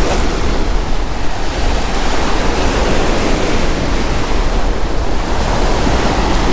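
Rough surf breaking and washing up the beach in a steady rush, with wind rumbling on the microphone.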